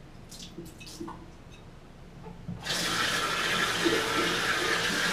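A few light clinks as a jar is handled. About two and a half seconds in, a sink tap is turned on and water runs steadily.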